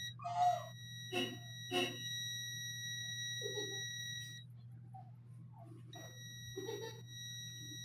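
ANENG M118A multimeter's continuity buzzer sounding a steady high beep while its probes bridge the commutator bars of a vacuum cleaner armature. The beep shows low resistance, about 0.1 ohm, between the bars through the winding. It cuts off about four and a half seconds in and starts again about a second and a half later, over a low steady hum.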